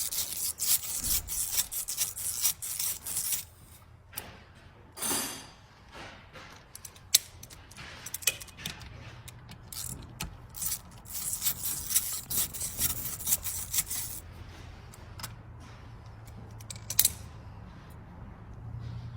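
Hand tools and parts being handled during outboard motor maintenance: clusters of clicks, scrapes and rubbing, with a single sharp knock about seven seconds in.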